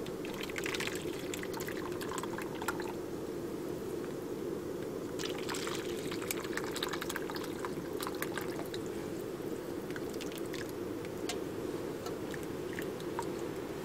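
Thick carrot and ginger soup poured from a camping pot into small bowls, splashing and dripping in two spells, the first bowl at the start and the second from about five seconds in, over a steady low rumble.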